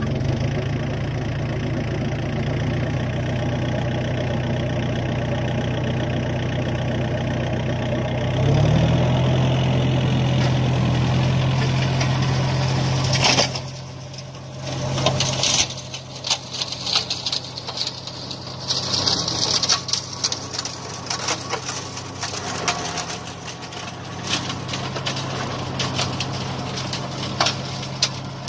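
New Holland TCE 50 compact tractor working a flail mower through weeds: its engine runs steadily, steps up in pitch about eight seconds in, and is loudest as it passes close by at about the halfway mark. After that it fades as it moves away, with scattered sharp clicks.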